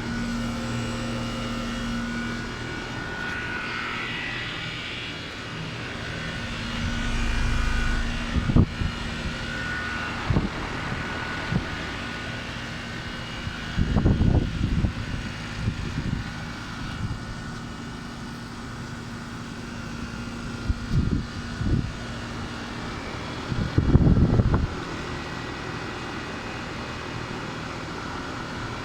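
Trane air conditioner units running: a steady fan and compressor drone with a constant hum. A few short, louder low rumbles break in, about midway and again near the end.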